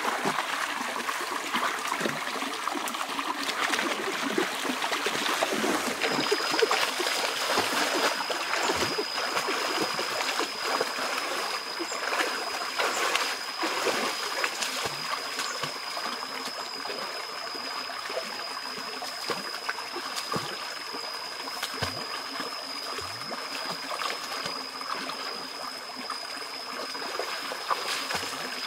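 Shallow rocky stream running over stones, with water splashing and sloshing as a person wades through it and gropes under rocks and the bank by hand for fish. The splashing is busiest in the first half, then the flow settles into a steadier rush.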